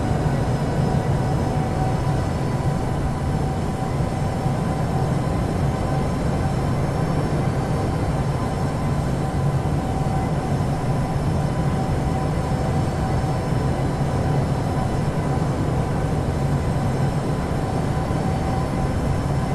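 A steady mechanical rumble with a few faint, steady whining tones over it, unchanging throughout.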